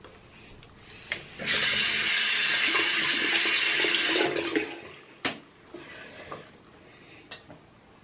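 Bathroom sink tap running for about three seconds as a face is rinsed, with a sharp click just before the water starts and another just after it stops.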